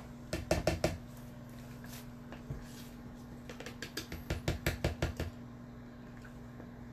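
Spoon and spatula knocking and scraping against a container while mixing pesto: a few clicks near the start, then a quicker run of clicks around the middle. A steady low hum sits underneath.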